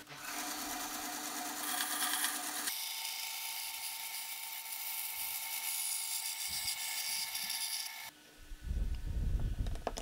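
A power tool running steadily, a high hiss with a steady tone in it, for about eight seconds, then cutting off suddenly. Low thumps and knocks follow near the end.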